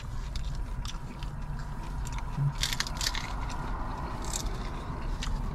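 Close-up biting and chewing of a fried birria taco, with a cluster of sharp crunches about halfway through and a few more a little later, over a low steady hum.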